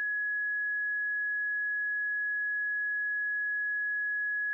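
Countdown timer's end alarm: one steady, unbroken high-pitched beep tone, signalling that the 90-second countdown has run out.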